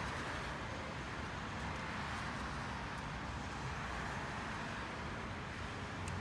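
Steady outdoor background noise: a constant, even wash with no distinct events.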